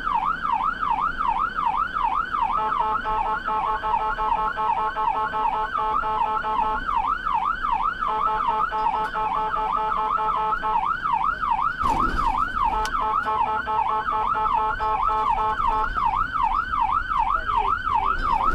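Emergency vehicle siren in a fast yelp, wailing up and down about three times a second without a break. For several seconds at a time a steady blaring tone of several notes sounds over it. There is a brief knock about twelve seconds in.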